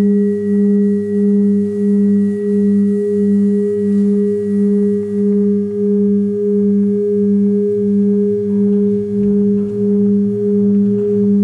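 Sustained musical drone: two held low tones an octave apart, throbbing evenly about one and a half times a second, with a faint high tone that fades out about halfway through.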